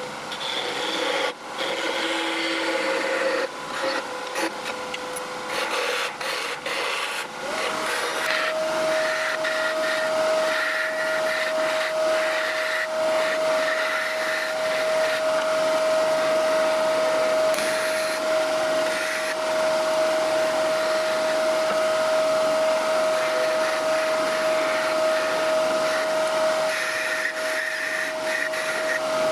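Laguna 1836 wood lathe's motor running with a steady whine that steps up in pitch about seven seconds in as the speed is raised. Light scraping and knocks are heard in the first seconds.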